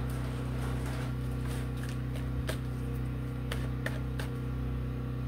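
Steady low hum of room noise, with a few faint clicks about halfway through.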